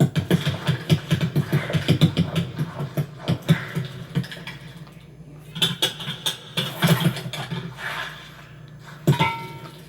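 A rapid flurry of clicks and clattering knocks for about five seconds, thinning to scattered clatters, over a steady low hum.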